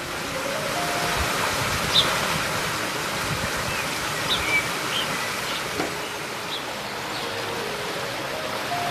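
Water of a small creek rushing steadily down a low step in a concrete channel, an even splashing noise. A few short high chirps sound over it in the middle.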